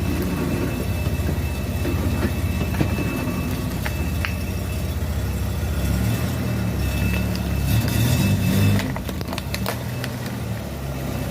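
A car engine running low and steady, its note rising and shifting for a few seconds about two-thirds of the way in, with a few scattered sharp clicks.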